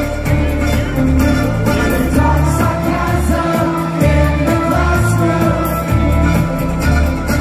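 Live dance anthem played by singers with an orchestra and band: a heavy, pulsing bass beat under a sung vocal line, loud and steady.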